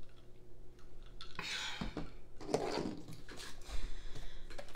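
Soft handling noises as things are moved and set down on a desk: a few light clicks and knocks, with rustling stretches about a second and a half in and again toward the end.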